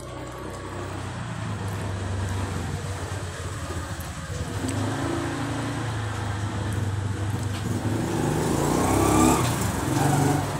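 A motor vehicle engine running steadily and drawing nearer, growing louder and rising in pitch to its loudest about nine seconds in, as it passes by.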